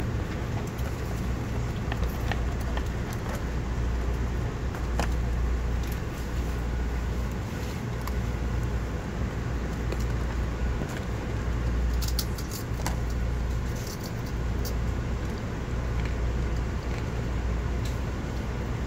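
Steady low hum of a passenger train standing at a station platform, its onboard equipment running, heard from inside the car, with a few faint clicks and rattles.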